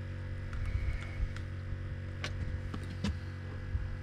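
A few light clicks and taps as a freshly caught fish is gripped and handled with a fishing glove, over a steady low hum.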